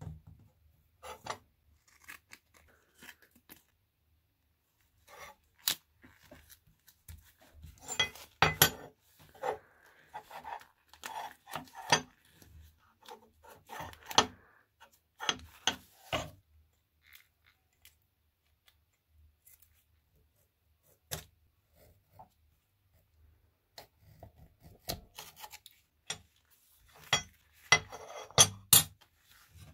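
Masking tape being handled, torn and rubbed down onto a steel axe head by gloved hands: scattered rips, rustles and scrapes, in two busy spells with a quieter lull between.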